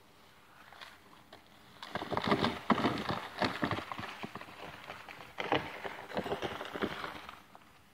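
Quick, irregular crunching footsteps in snow close to the microphone, starting about two seconds in, with a short break near the middle before they pick up again.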